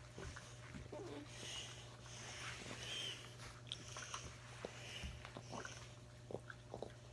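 A puppy moving and mouthing close to the microphone, with scattered small clicks and soft mouth noises, over a person's heavy breathing that is loud in the microphone. A steady low hum lies underneath.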